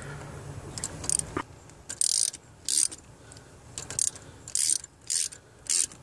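Socket ratchet wrench clicking in short bursts, one or two a second, as it tightens the bolt on a new battery cable terminal clamp.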